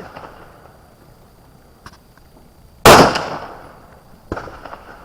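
A single rifle shot about three seconds in, with a long echoing fade, followed about a second and a half later by a fainter sharp crack.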